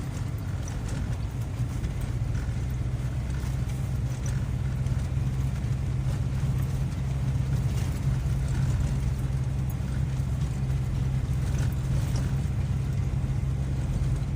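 Vehicle engine running at a steady, low pitch while driving slowly through deep snow.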